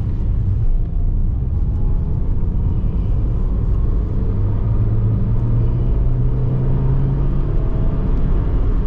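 Nissan Micra K11 under way, heard from inside the cabin: a steady low rumble of engine and tyre noise, with a faint whine that slowly rises in pitch in the second half, the gearbox whine the owner notices in first gear.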